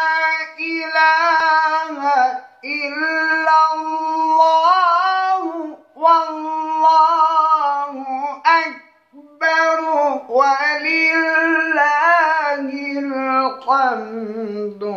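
A man's solo melodic Quran recitation in maqam Hijaz, unaccompanied. He holds long, ornamented notes in several phrases, with short breaths between them, and his pitch sinks lower near the end.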